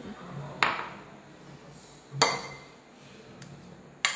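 A steel spoon clinking against glass bowls three times, about a second and a half apart, while chutney is spooned in and the chaat is stirred; the middle clink is the loudest.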